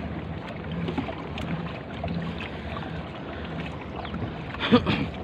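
Pedal-drive kayak under way: the drive unit makes a low whirring hum that swells about once a second with the pedal strokes. Near the end there is a brief louder knock.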